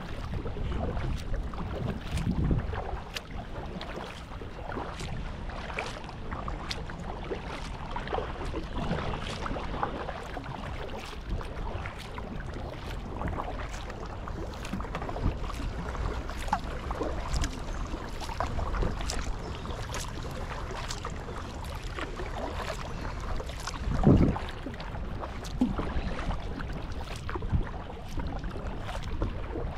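Kayak paddling: water splashing and dripping off the paddle in many small ticks and trickles. Low wind rumble in the first few seconds, and one louder low thump about three quarters of the way in.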